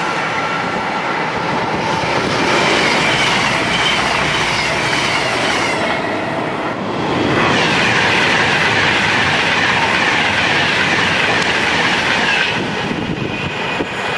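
Container freight wagons passing close on the rails: a steady loud rumble of steel wheels, with clattering and some squeal. A little past halfway the sound changes abruptly to a similar continuous rail noise.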